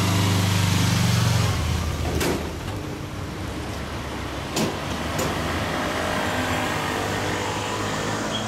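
2014 Honda VFR800's V4 engine breathing through a Wyvern aftermarket exhaust as the bike pulls away from a standstill. It is loud for the first second or so, then fades as the bike rides off down the street, with a few short sharp clicks along the way.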